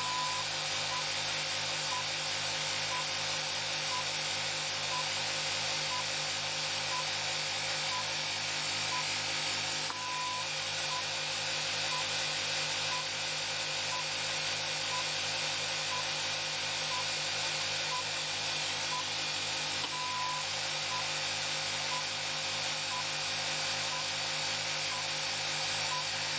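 Steel-disk 'N machine' generator spinning steadily with an even electric hum. A short electronic beep sounds once a second, with a longer beep every ten seconds.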